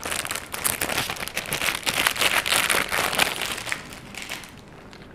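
Clear plastic bag crinkling and rustling as a keyboard is pulled out of it. The crinkling is densest in the middle and dies down about four seconds in.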